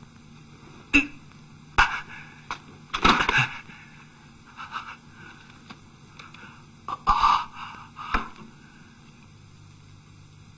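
A few sharp knocks and clicks, bunched around three seconds in and again around seven seconds in, with short rustles between them, over a steady low hum and hiss.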